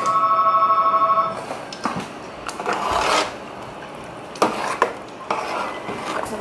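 A trilling electronic tone rings for about a second and a half, then a metal spoon scrapes and rubs against the sides of a large aluminium pot in several strokes as a thick stew is stirred.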